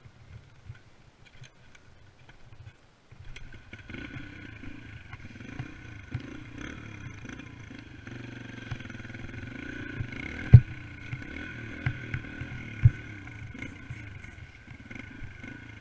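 Dirt bike engine running under a ride over rough ground, its pitch rising and falling with the throttle, coming in about three seconds in after a quieter start. Several sharp knocks from the bike jolting over bumps, the loudest about two-thirds of the way through.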